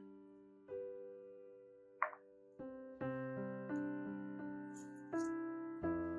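Gentle solo piano background music, slow notes left to ring, with a brief click about two seconds in.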